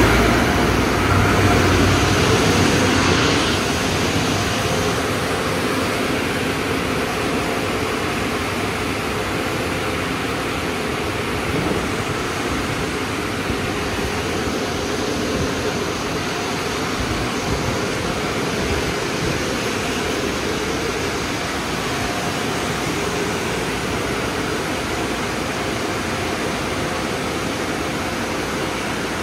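Car wash tunnel blower dryers running, a loud, steady rush of air with a faint underlying hum, a little louder for the first few seconds.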